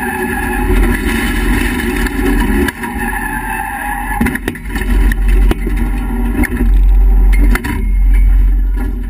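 Cabin sound of an HQ Holden race car's straight-six engine running, then a run of sharp knocks and bangs from a head-on collision with another car, about four seconds in. Near the end a loud, low rumble is the loudest sound.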